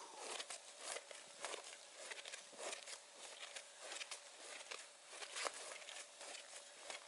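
Gillnet running line being pulled in hand over hand through gloved hands at a hole in lake ice: faint, irregular rustles and small ticks.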